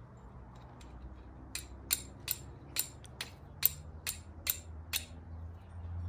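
Flint and steel: a homemade steel striker made from an old file struck against a stone the owner takes for flint, about nine sharp clicking strikes at two to three a second starting about a second and a half in, to throw sparks onto char cloth.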